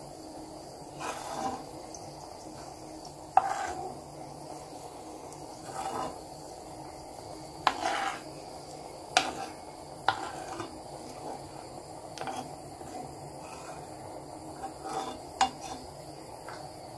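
Spoon stirring hot, frothing ghee in a steel pan, with a steady faint sizzle and a few sharp clinks of the spoon against the pan.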